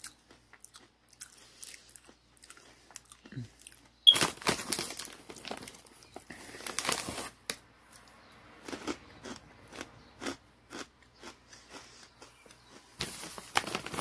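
Crunchy puffed vegan crackle snack being bitten and chewed close to the microphone: a loud crunch about four seconds in, then repeated crackly chewing.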